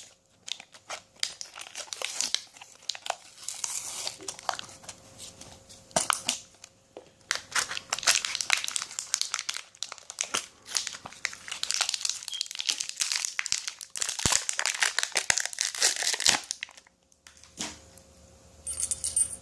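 Plastic packaging crinkling and crackling as it is handled and torn open by hand, in irregular spurts with short pauses.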